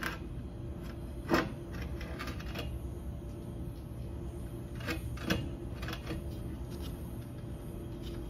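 Oil pan of a Harley-Davidson Twin Cam being wiggled by hand to free it from under the bike, giving a few scattered metal knocks and clatters, the loudest about a second and a half in, over a steady low hum.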